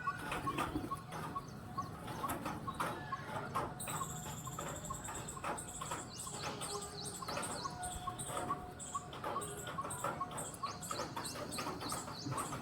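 Birds chirping, with wing flaps and many short sharp clicks. A long high-pitched call is held for about two seconds in the middle.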